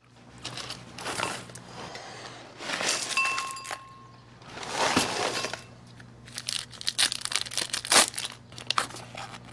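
Newspaper pages rustling and dry cereal being poured from its box into a bowl: several crinkling rustles, then a run of quick small clicks and rattles near the end.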